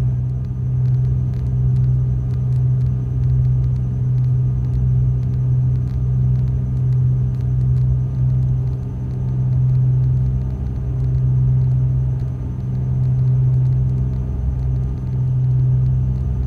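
Cessna 310's twin piston engines and propellers droning steadily in cruise, heard inside the cabin, with a slow rise and fall in loudness every couple of seconds.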